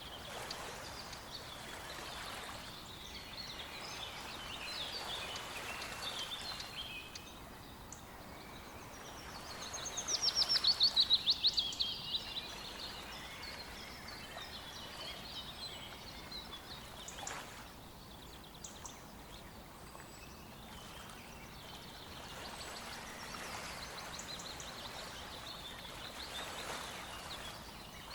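Several songbirds singing over the steady rush of a stream, with one loud, fast song of rapidly repeated notes about ten seconds in.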